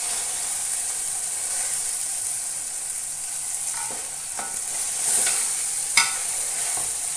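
Whole marinated chicken sizzling as it browns in ghee in a steel pan, a steady high frying hiss, with a wooden spatula and metal tongs scraping as it is turned. There is a sharp click about six seconds in.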